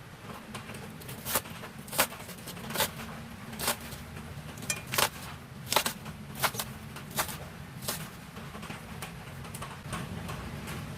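Sharp knocks of kitchen utensils, about one a second for most of the stretch, over a steady low hum.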